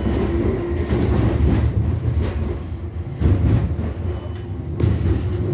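Tram running on its rails, heard from inside the car: a steady low rumble from the wheels, with a few knocks over rail joints and a faint electric motor whine near the start.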